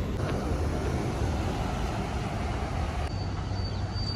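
Street traffic noise: a steady rumble of vehicles on a city road. About three seconds in, a thin steady high whine joins it.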